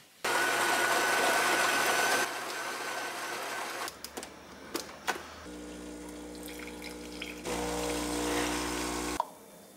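Home espresso machine with a built-in grinder: a loud grinding whirr first, then clicks and knocks as the portafilter is handled and locked in, then the pump humming steadily while the espresso pours. The hum grows louder near the end and stops with a click.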